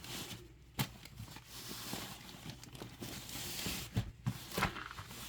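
Packaging rustling and crinkling as it is handled and unwrapped, with a few sharp knocks, one about a second in and a couple near the end.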